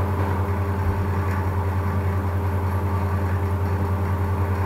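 A steady low hum with a few constant tones above it and a slight even flutter in level.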